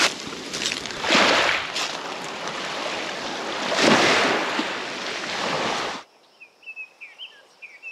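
Rushing wind and surf noise on the camera microphone at the water's edge, with two stronger swells. About six seconds in it cuts off to quiet, with a few faint high chirps.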